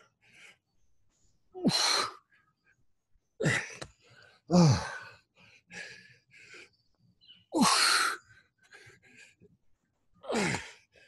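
A man's forceful exhales and short grunts of effort, some falling in pitch, about five in all and spaced one to three seconds apart. He is straining through push-up bird dogs in a high-intensity interval.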